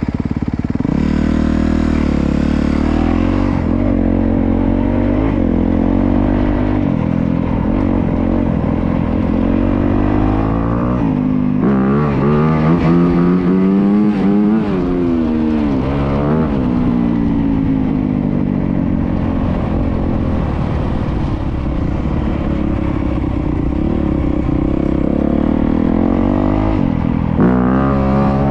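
2025 Honda CRF250R dirt bike's 250cc single-cylinder four-stroke engine running under riding. The revs rise and fall several times in the middle, and the engine picks up again near the end.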